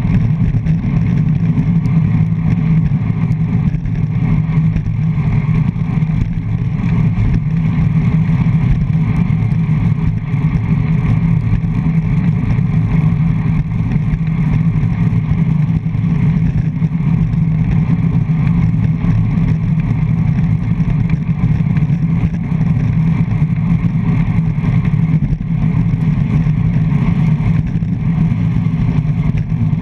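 Loud, steady low rumble of wind and road vibration on a handlebar-mounted GoPro Hero 3+ on a road bike riding at race speed.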